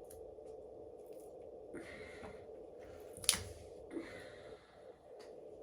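Small clicks and brief scraping rustles of tools and scooter parts being handled during disassembly, with one sharp click about three seconds in, over a faint steady hum.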